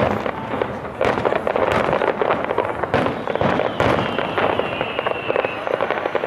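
Fireworks display going off: a dense, continuous crackle of many pops and bangs, with a few louder bangs among them. Partway through, a faint high whistle falls slightly in pitch.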